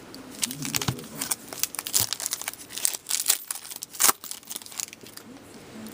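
Wrapping on a box of hockey trading cards crinkling and tearing as the box is opened by hand: an irregular run of crackles, with one sharp crack about four seconds in.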